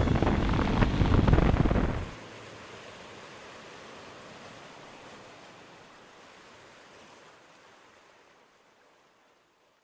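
Wind noise on the microphone of a moving scooter, a loud, even rushing that drops sharply about two seconds in to a faint hiss, which then fades away.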